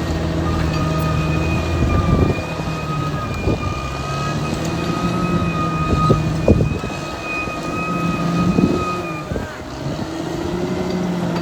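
Caterpillar D6R XL crawler bulldozer running under load, its diesel engine droning steadily. A high steady whine sounds from about a second in until near the end, and sharp metal clanks come from the machine several times.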